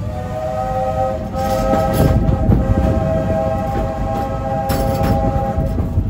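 Steam locomotive whistle on the Walt Disney World Railroad sounding one long blast of about five seconds, a chord of several notes, over the running noise of the train.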